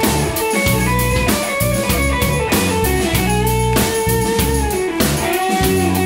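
Live rock band jamming: an electric guitar lead with notes that bend up and down over sustained low notes and a drum kit keeping a steady beat.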